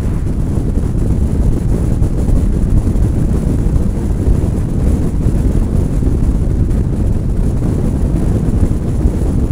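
Wind buffeting the microphone of a camera mounted on the outside of a moving car: a loud, steady low rumble.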